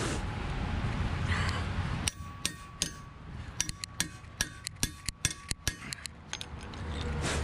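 Steel hand tools for a truck wheel change, a hammer and a lug-wrench socket and bar, tapping and clinking together: a quick, irregular run of sharp metallic taps starting about two seconds in and stopping shortly before the end.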